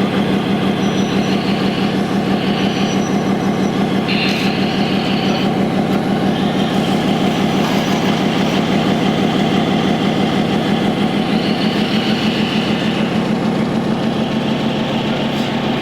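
Engine sound of a radio-controlled model truck idling, a steady low throb that pulses rapidly and evenly.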